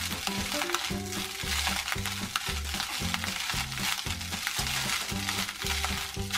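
Egg fried rice sizzling in a nonstick wok while a wooden spatula stirs and scrapes it in quick repeated strokes. Background music with a steady beat plays underneath.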